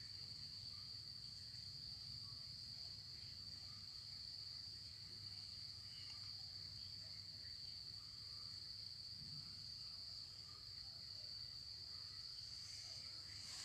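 Insects, crickets by the sound, trilling faintly in one steady, unbroken high-pitched tone.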